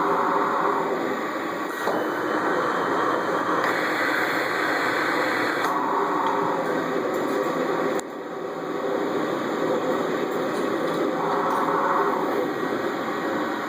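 Cough Assist machine running, a steady rush of air through its tubing and mask that shifts in tone every two to three seconds as it cycles between pushing air into the lungs and pulling it back out, with a sudden drop in level about eight seconds in.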